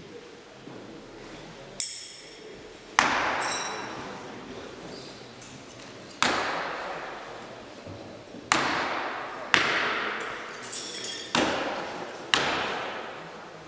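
Throwing knives striking wooden block targets one after another, about seven sharp thunks at uneven intervals, each echoing through a large hall. The first hit, about two seconds in, has a high metallic ring.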